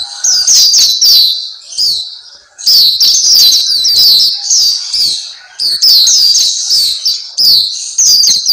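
Black-capped white-eye (pleci) singing: fast, high twittering phrases of rapid chirps, with short pauses about two seconds in and again a little past the middle.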